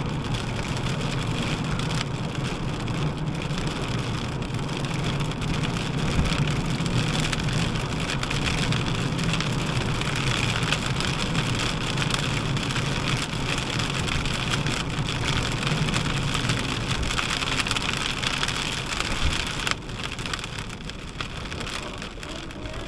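Rain and hail hitting the roof and windshield of a moving car, heard from inside the cabin as many sharp ticks of individual impacts over steady road noise. It eases a little near the end.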